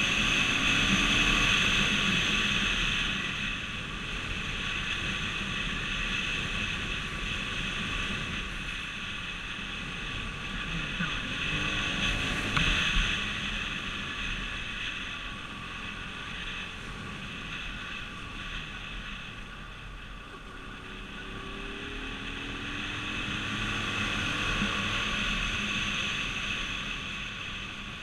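Expressway traffic: steady road and tyre noise with a constant high hum, and vehicles swelling past three times, their engine pitch sliding as they go by.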